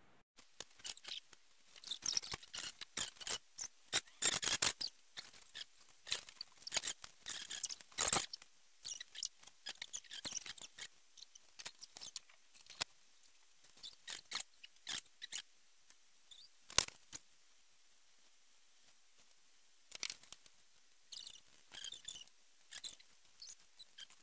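Pencil scratching on paper in quick, irregular strokes as fur is hatched in, the footage sped up so the strokes come as rapid scratchy rustles, with a brief lull a little past the middle.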